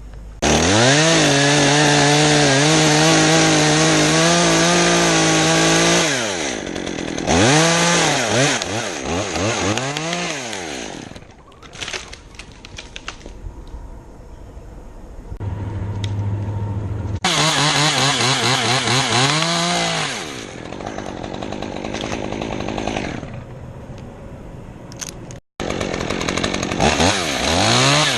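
Two-stroke chainsaw revved to full throttle and held there for about five seconds, then blipped twice and dropped back to idle. It is run up to speed again twice more, the last time near the end.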